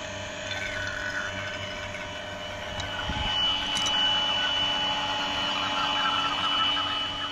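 Small electric refrigerant vacuum pump running steadily as it pulls a vacuum on a split air conditioner's refrigerant lines. A thin high whine joins in about three seconds in.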